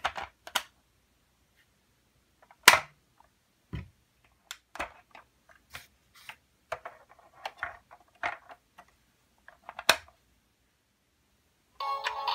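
Sharp hard-plastic clicks and knocks as toy figures and the door of a Fisher-Price toy SUV are handled, loudest twice. Near the end a button on the toy's dashboard is pressed and its electronic stereo starts playing a tune.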